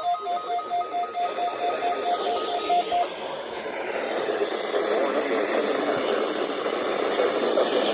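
A weather radio's alert beeps as a two-tone beep pulsing about three times a second, then stops about three seconds in. Steady radio static hisses for the rest of the time.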